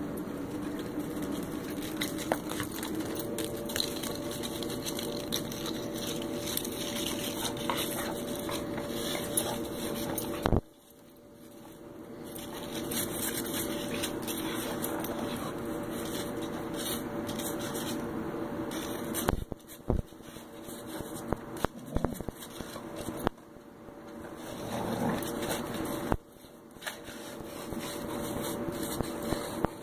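A dog rooting its nose and paws through snow: scattered scraping and crunching sounds over a steady background hum that drops out suddenly about a third of the way in and again later.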